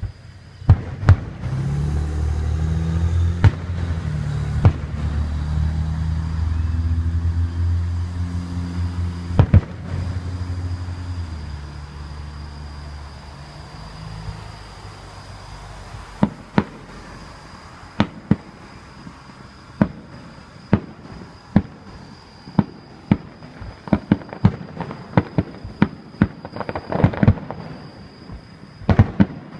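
Fireworks exploding in a string of sharp bangs, turning into a fast, ever denser run of reports in the second half. For about the first ten seconds a loud low droning sound, shifting between a few pitches, runs under the bangs.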